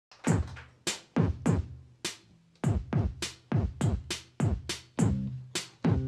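Opening of a synth-pop song: a syncopated electronic drum beat of sharp hits that drop quickly in pitch, about two a second, over a low sustained bass note; more sustained synth notes begin to build near the end.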